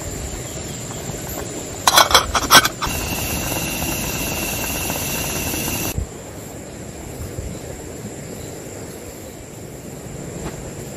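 Pot of rice boiling on a butane camp stove. About two seconds in there is a brief clatter of the metal pot or its lid. Then comes a steady hiss with a high whistle-like tone, which cuts off abruptly at about six seconds and leaves a quieter, even outdoor background.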